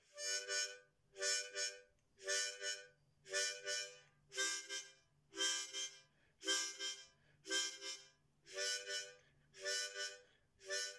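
Background music: a harmonica puffing out the same short chord about once a second, with a faint low drone between the chords.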